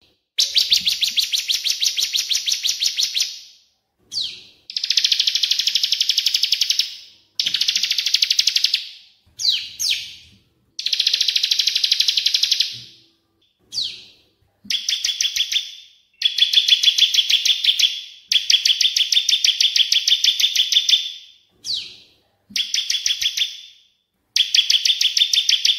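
Songbird song from a masteran recording of ciblek (bar-winged prinia) and cililin (crested jay): long high trilled phrases of fast repeated notes, about seven a second, each phrase lasting two to four seconds, separated by short pauses and a few brief slurred notes.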